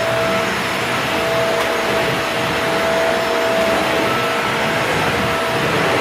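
Vacuum cleaner running steadily: an even rush of air with a constant motor whine.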